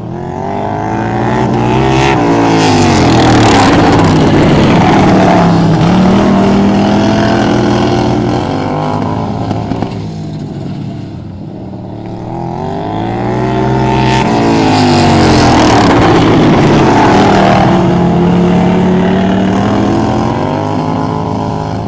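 Racing lawnmower engine revving hard and passing by twice, its pitch climbing and dropping repeatedly as it goes around the track; loudest about four and sixteen seconds in.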